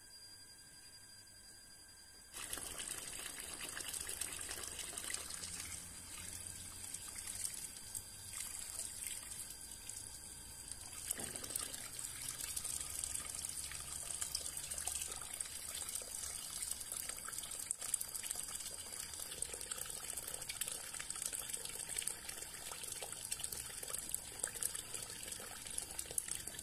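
Water running and trickling, starting suddenly about two seconds in and going on steadily.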